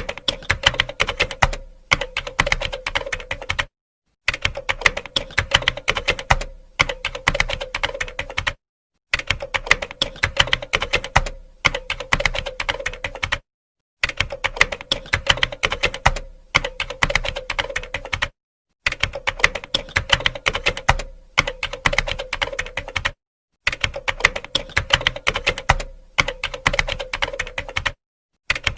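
Typing on a computer keyboard: a fast, dense run of key clicks, broken by short pauses and stopping dead for about half a second roughly every five seconds.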